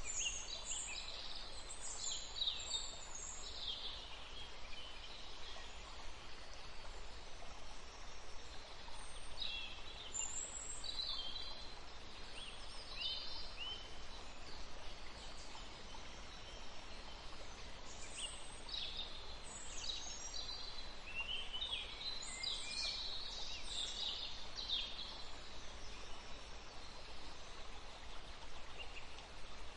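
Birds chirping and singing in scattered runs of high notes, over a steady faint background hiss.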